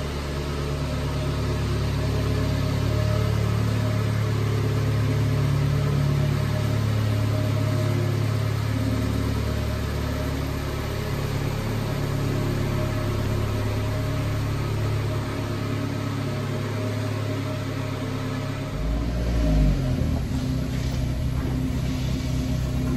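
The small four-cylinder engine of a 1999 Subaru Sambar kei truck idling steadily. About nineteen seconds in the pitch wavers and a deeper low throb comes in.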